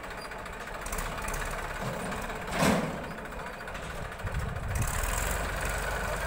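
Tractor diesel engine running as the tractor moves off and turns with its trolley, with a JCB backhoe loader's engine running nearby. A single loud, brief burst of noise comes about two and a half seconds in. The low engine sound grows stronger from about four seconds in.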